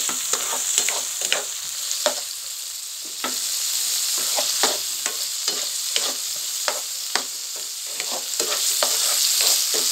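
Chopped tomato, onion and garlic sizzling in hot oil in a nonstick pan while being sautéed. A plastic spoon stirs them, knocking and scraping against the pan about once or twice a second.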